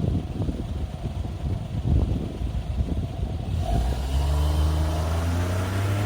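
Wind buffeting the microphone, then from just past halfway a vehicle engine pulling away, its pitch rising steadily as it accelerates.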